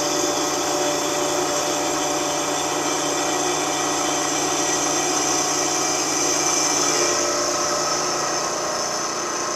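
Milling machine cutting a cast iron casting: a steady run of the cutter through the iron over the hum of the machine. The low hum drops away about seven seconds in.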